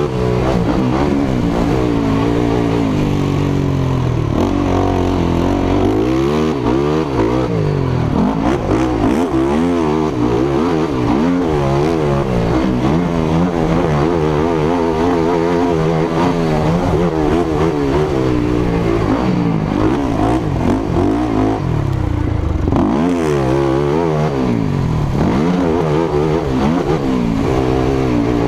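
Racing quad's engine revving hard, its pitch rising and falling again and again as the rider accelerates, shifts and backs off around a motocross track. It is heard close up from on board, with a steady rush of noise over it.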